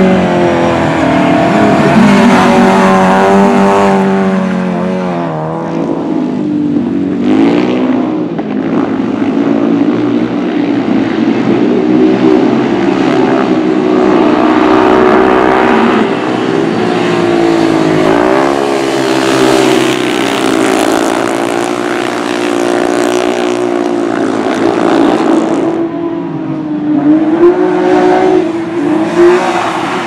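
Racing engines revving hard on a dirt track, their pitch climbing and falling over and over as the cars and speedway motorcycles power and slide through the corners.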